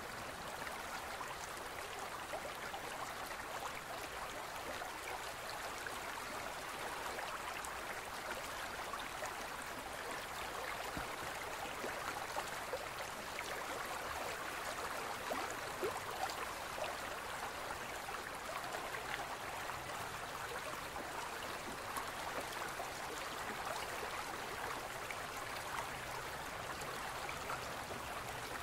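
A stream of running water flowing steadily: an even rush with small scattered splashes.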